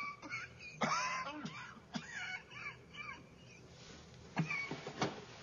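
A person's wordless vocal sounds, rising and falling in pitch for a couple of seconds, with a few short clicks or knocks.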